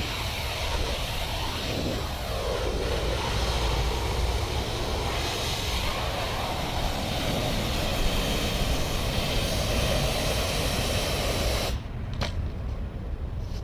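Pressure washer running, its engine rumbling steadily under the hiss of the high-pressure water spray. Near the end the spray cuts off suddenly, followed by a single click, while the engine keeps running.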